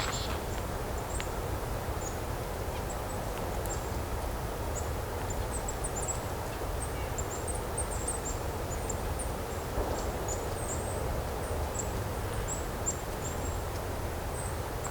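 Many short, very high-pitched thin calls from small songbirds in a winter flock, scattered throughout over a steady low rumble.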